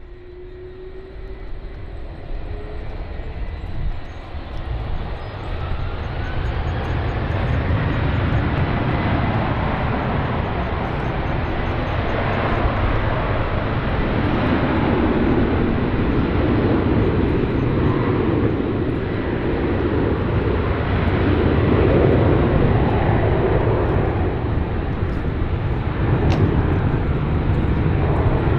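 Jet airliner engines roaring as the aircraft comes close, building steadily over the first several seconds and then holding loud, with a thin whine rising in pitch at the start.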